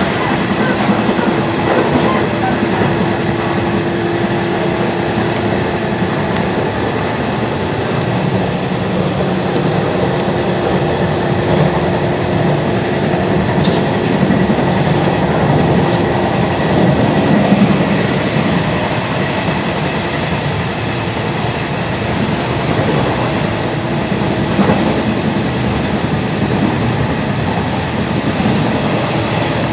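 Nishitetsu 2000 series electric train running, heard from inside the passenger car: a steady rumble of wheels and running gear with a steady hum over it.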